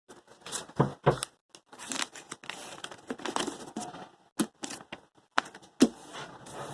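Crinkling, rustling and tearing handling noise, like packaging being torn open and crumpled, broken by several sharp knocks.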